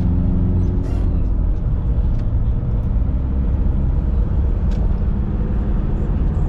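A car driving: a steady low rumble of engine and road noise with an even engine hum.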